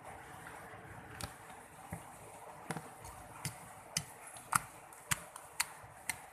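Sharp, irregular clicks and pops, about nine in six seconds, from a squishy toy being squeezed and handled.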